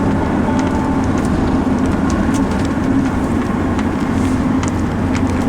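Steady low rumble of a running vehicle, with a few light clicks over it; it cuts off suddenly at the very end.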